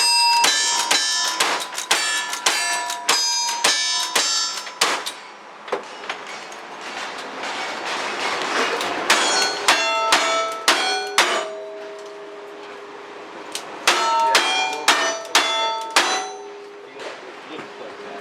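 A cowboy action shooting string: rapid gunshots, each hit answered by a steel target ringing with a clear metallic tone. A fast run of about ten shots comes in the first five seconds, then after a pause two quicker runs of about five shots each, around ten and fifteen seconds in.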